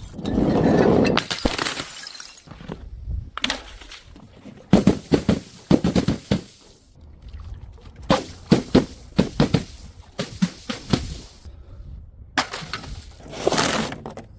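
Glass breaking and crunching: clusters of sharp cracks and clinks, with a louder rushing swell at the start and again near the end.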